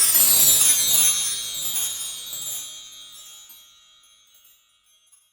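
A shimmering cascade of high metal chimes that starts at full strength and rings away, fading out over about four seconds: an added closing sound effect.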